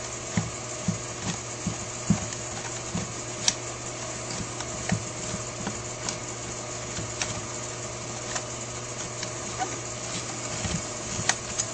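Light clicks and taps of small metal parts as bolts are started by hand into a Holley 4000 four-barrel carburetor, about two a second at first and then sparser, over a steady background hum.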